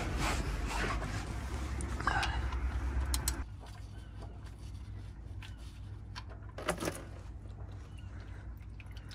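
A ratchet and socket clicking and knocking as the sump drain plug of a Ford Focus 1.6 petrol is worked loose, then warm engine oil pouring from the sump into a plastic drain pan, faint. A low hum runs underneath and drops about three and a half seconds in, with a single knock near the end.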